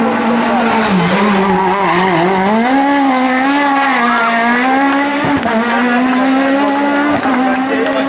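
Peugeot 306 Maxi rally car's naturally aspirated four-cylinder engine revving hard through a hairpin: the pitch dips about a second in, then climbs again and holds high, with tyres squealing as the car slides.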